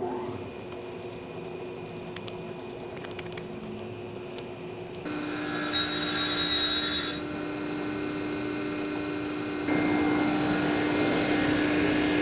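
Chevalier FSG-618M surface grinder running with a steady motor hum as its wheel grinds the magnetic chuck. A louder, higher grinding sound comes in about five seconds in, drops back a couple of seconds later, and rises again near ten seconds.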